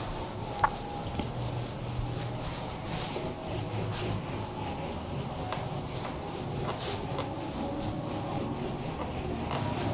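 Whiteboard being wiped clean with an eraser, a dry rubbing sound in repeated strokes across the board.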